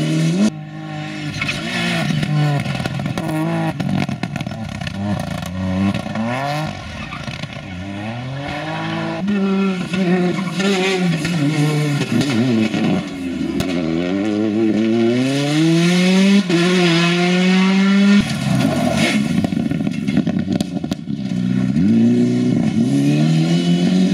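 Rally cars, among them a Mitsubishi Lancer Evolution and a Peugeot 208, driving past one after another at speed, their engines revving up through each gear and dropping back at every shift.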